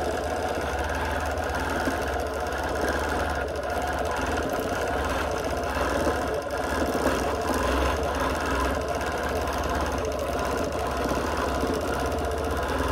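Bernina longarm quilting machine stitching steadily, its needle running continuously as it is guided in free-motion quilting.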